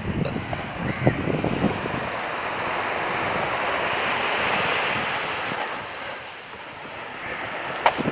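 Small waves breaking and washing up on a sandy beach, a steady surf hiss that swells and eases. Wind buffets the microphone in the first couple of seconds, and there is a single sharp knock near the end.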